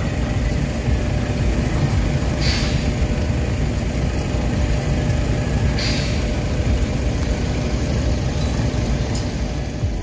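Heavy site-machinery engine running steadily with a low rumble. Two short hisses come about two and a half and six seconds in.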